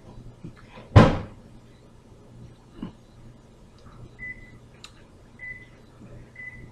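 A sharp knock about a second in, a softer knock a little later, then three short high electronic beeps at uneven intervals about a second apart.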